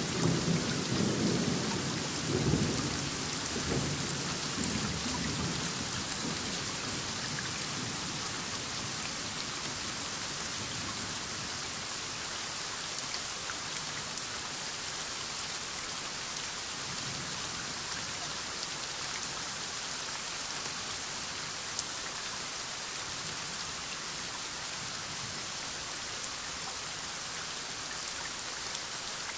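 Thunderstorm: heavy rain falling steadily, with a roll of thunder rumbling low and dying away over the first few seconds.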